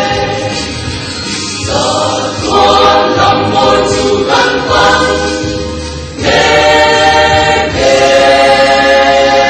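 Mixed Mizo church choir of men and women singing a hymn in harmony, holding long chords. The singing dips a little, then swells louder about six seconds in.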